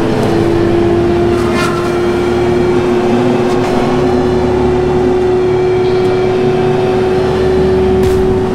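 Tigercat 718E wheeled feller buncher running under load, with a loud steady whine that slowly rises in pitch.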